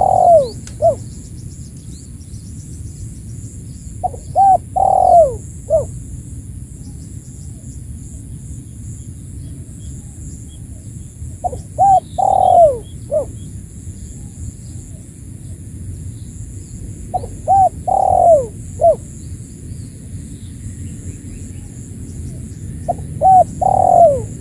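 Spotted dove (tekukur) giving its territorial coo, the call used to lure rival doves: each phrase is two or three short coos, a long falling coo and a short final note, repeated about every six seconds, five times.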